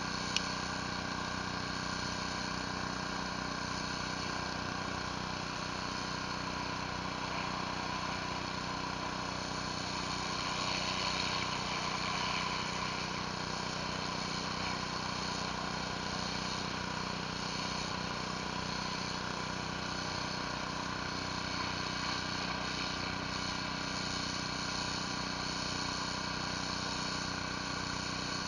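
Pressure washer engine running steadily under load while a surface cleaner sprays water across concrete, swelling slightly about ten seconds in.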